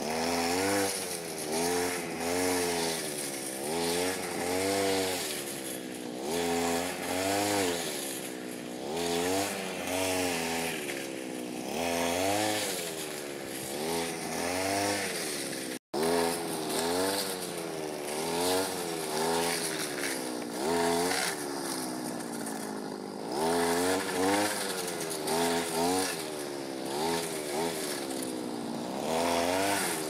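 Petrol brush cutter (string trimmer) cutting meadow grass, its engine revving up and dropping back over and over, about once every second or two.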